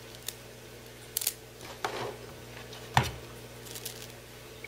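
Hands handling a coiled power-supply cable and its packaging: a few scattered clicks and short rustles, the sharpest about three seconds in, over a faint steady hum.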